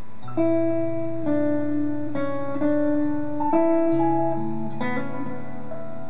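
Two steel-string acoustic guitars playing an instrumental piece, picking and strumming chords that change about once a second, over low held notes from a bowed cello.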